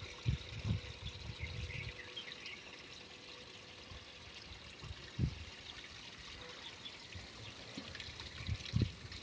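Water pouring from a stainless steel bucket into the tank of a backpack sprayer, a steady splashing trickle as the tank is filled. A few soft low thumps come near the start, about halfway through and near the end.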